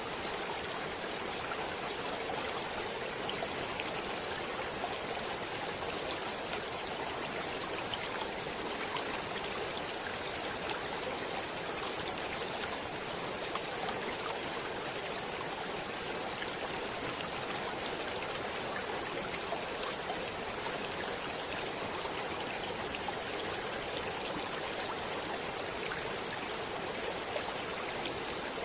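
Stream water flowing, a steady, unchanging rush with fine splashing throughout.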